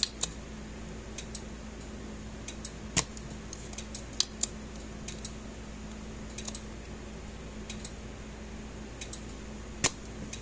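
Spring-loaded desoldering pump (solder sucker) snapping as it is fired and re-cocked while solder is pulled off the transformer's joints on a circuit board: a handful of sharp clicks, the loudest about three seconds in and near the end, over a steady low hum.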